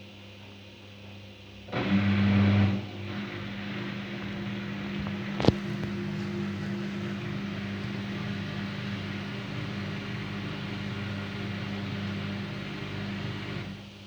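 Daewoo DWD-FT1013 washing machine filling with water for the rinse: water rushes in over a steady hum, with a loud surge as it starts and a sharp click a few seconds later. The flow stops suddenly near the end.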